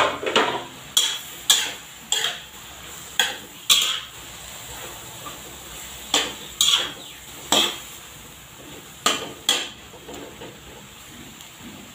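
Metal spatula scraping and clacking against a metal wok while stir-frying sliced sponge gourd and onions. There are about a dozen sharp strokes, often in quick pairs, over a steady low sizzle, and they thin out near the end.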